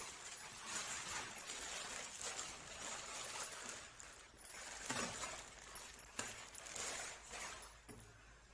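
Packaging rustling and crinkling in irregular bursts as it is handled and pulled open during unboxing.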